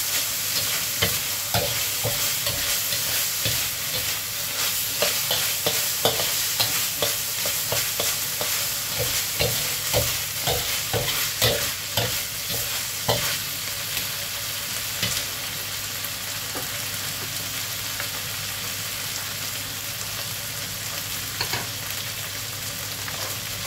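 Minced pork frying in a metal wok, a metal spatula scraping and clacking against the pan as it is stir-fried. Just over halfway through the stirring stops and only a steady sizzle is left.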